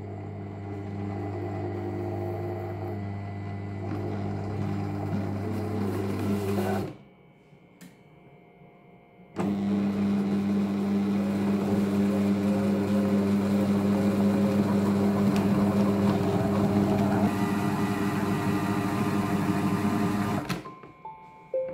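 Silvercrest Monsieur Cuisine Connect food processor motor running its dough-kneading programme with a sticky bread dough in the bowl: a steady hum that stops for about two seconds some seven seconds in, then runs again, louder, until the one-minute knead cycle ends near the end. A few short electronic beeps from the machine follow as it stops.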